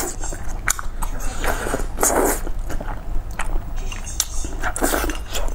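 Close-miked eating sounds from a bowl of hotpot: a few slurps, the longest about two seconds in and another near the end, between wet clicks and smacks of chewing.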